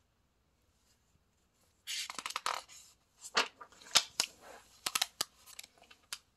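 A page of a hardcover picture book being turned by hand: paper rustling and sliding for about a second, then a run of sharp paper crackles and snaps as the page flips over.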